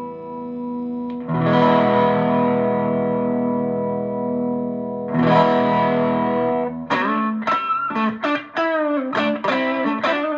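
Electric guitar played through a TC Electronic Dark Matter distortion pedal: a distorted chord struck about a second in and left ringing, another struck about five seconds in, then a run of quickly picked single notes from about seven seconds in.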